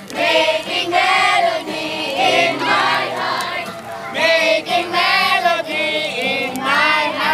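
A group of young people singing an action song together in unison, many voices at once.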